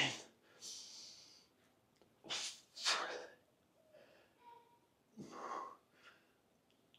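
A man's hard, sharp breathing with the strain of lifting dumbbells near failure in a set of front raises: a loud grunting exhale at the start, then several short hissing breaths, two close together around two and a half to three seconds in and another about five and a half seconds in.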